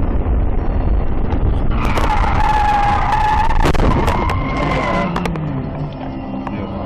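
Tyres screeching in a hard skid for about three seconds, with sharp crunching impacts of a car collision toward its end, over steady engine and road rumble.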